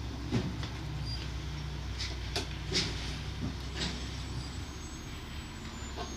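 A few light clicks and taps of hand work at a stopped metal lathe's chuck and part, over a steady low hum.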